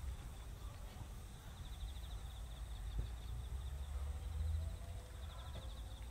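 Quiet rural outdoor ambience with a steady low rumble and a thin, high, rapidly pulsing trill. A single faint knock comes about three seconds in.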